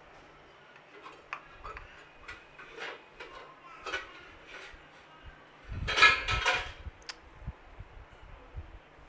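Light clicks and taps of hands working samosa dough and a plastic samosa mould on a marble countertop, with a louder short clatter about six seconds in.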